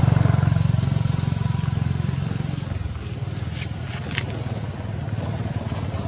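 A motor vehicle's engine running with a low, pulsing hum that fades about halfway through.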